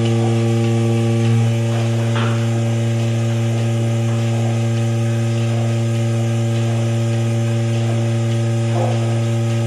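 Steady low electrical hum with several higher overtones, unchanging throughout.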